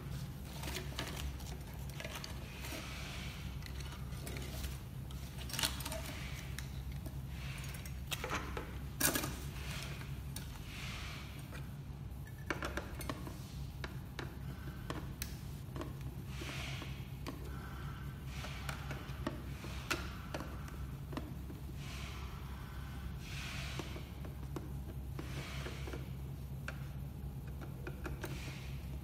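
Scattered small clicks, taps and knocks of plastic and metal projector parts being handled and worked with a screwdriver, a few sharper knocks among them, over a steady low hum.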